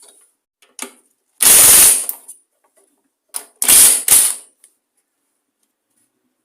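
Socket tool working a stubborn engine-cover bolt: two short bursts of rapid clicking, about two seconds apart, with a few light tool clicks between. The bolt head is rounded.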